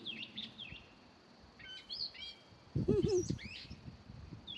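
A songbird calling in short high chirps and quick pitch sweeps, in several brief phrases. A louder, lower sound comes briefly about three seconds in.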